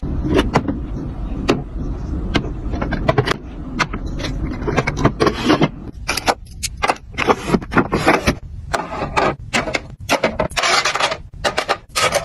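Handling of an ecoco plastic cosmetic organizer: a quick run of hard plastic clicks, knocks and scrapes as its drawers are slid and items are set in them, with metal jewelry clinking.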